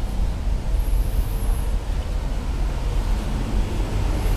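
Steady low background rumble with a faint hum under it, with no distinct sound rising above it.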